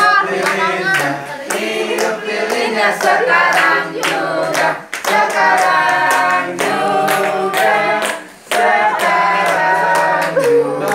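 A group of people singing a birthday song together and clapping along in time.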